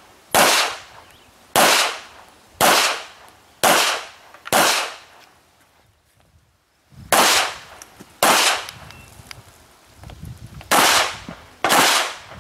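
Handgun shots fired one at a time about a second apart, nine in all. There are five in a row, then a pause of about two seconds, then two more, then another pause, then two near the end.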